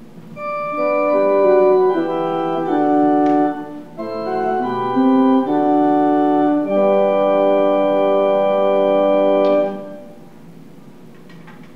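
Organ playing a short passage of sustained chords, ending on a long held chord that stops about ten seconds in.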